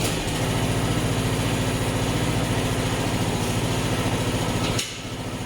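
Lawn mower's petrol engine running steadily just after being started on its battery. About five seconds in it drops to a quieter idle.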